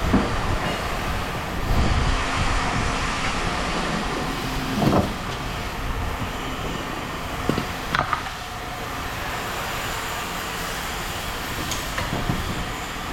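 A steady low mechanical rumble, with a few sharp knocks about five and eight seconds in.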